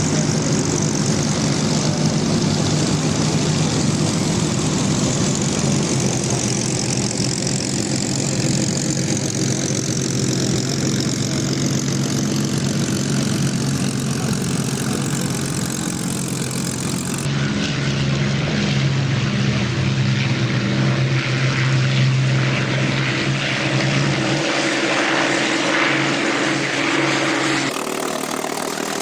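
Piston engines of several Spitfires running steadily, a loud continuous propeller drone. Its character changes abruptly about 17 seconds in and again near the end, where the recording is cut.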